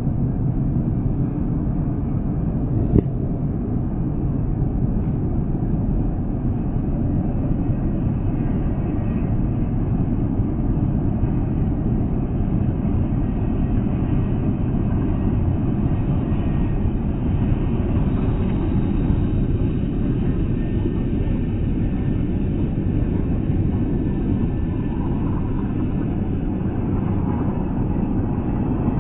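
Steady highway traffic noise: tyres and engines of cars and semi trucks passing at highway speed, heard as a constant low rumble. A brief click about three seconds in.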